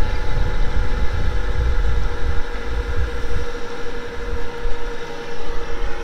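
Wind buffeting the camera microphone, an uneven low rumble and hiss, over a steady machine hum.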